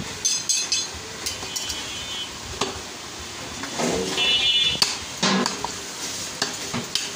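Butcher's meat cleaver chopping beef on a wooden chopping block: a handful of irregular knocks, the loudest near the middle, mixed with metallic clinks.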